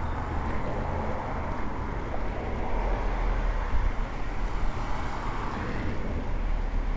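Steady outdoor street ambience in light freezing rain: an even hiss of falling rain over a low rumble, with no distinct events.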